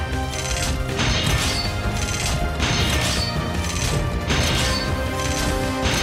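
Cartoon transformation sound effects: repeated mechanical clanks and clunks of metal parts shifting and locking into place as a car transforms into a robot animal, over background music.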